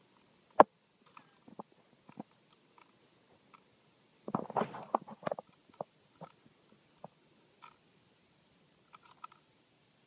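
Kel-Tec KSG pump shotgun being handled: one sharp click about half a second in, then scattered small clicks and a brief clattering rattle about four seconds in.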